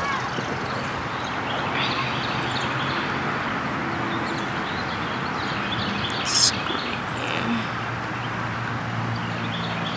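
Steady background hiss with a low, even hum underneath, and a brief sharp high sound about six and a half seconds in.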